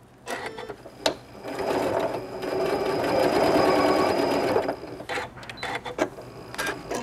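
Sewing machine stitching a short basting seam of about two inches, running at an even, rapid needle rhythm for about three seconds before stopping. A few sharp clicks come before it starts and after it stops.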